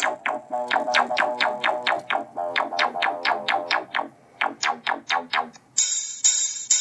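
Electronic music with quick plucked, synth-like notes, played through a Samsung Galaxy S6's built-in loudspeaker, with almost no deep bass. Near the end it changes to a denser, brighter section.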